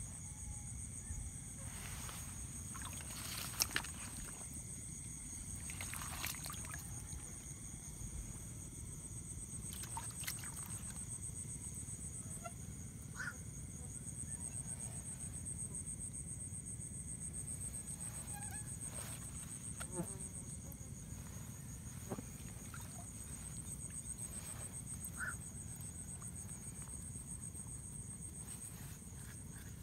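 Night insects trilling steadily in a high, pulsing chorus, with a few sharp clicks and rustles from the net and plants being handled in the water.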